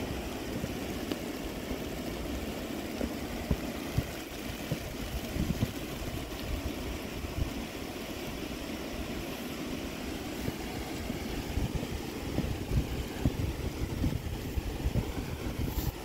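Wind buffeting the microphone in a snowstorm, a fluctuating low rumble over a steady outdoor rushing hiss.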